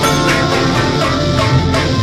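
Experimental instrumental music: dense layers of sustained tones, with a few drum hits cutting through.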